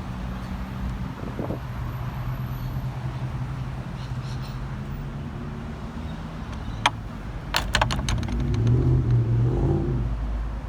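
A motor vehicle engine running with a steady low hum, growing louder near the end. A sharp click comes a little before two-thirds of the way in, followed by a quick run of clicks.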